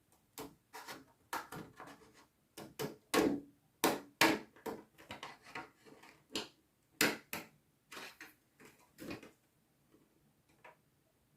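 Craft materials and tools being handled on a work surface: irregular sharp clicks, taps and short scrapes. The loudest come around three to four seconds in, and they thin out after about nine seconds.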